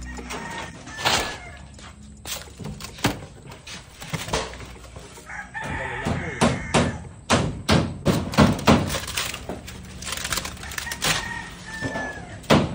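Irregular hammer blows and knocks on wooden door framing, with chickens clucking and a rooster crowing in the background.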